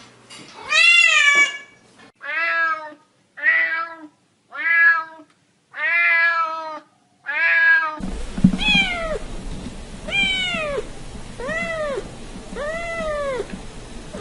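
A cat meowing six times in quick succession, about a second apart. Then a tabby kitten meowing about five times, each meow rising and falling in pitch, over a faint background hiss.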